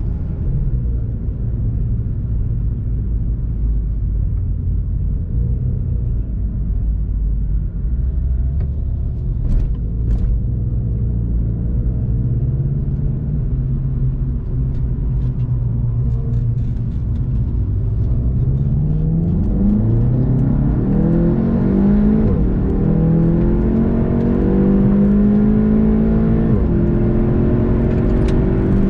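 Volkswagen Golf GTI TCR's turbocharged four-cylinder engine rumbling at low speed, then accelerating hard from about two-thirds of the way in, its pitch climbing and dropping back at each upshift through the gears.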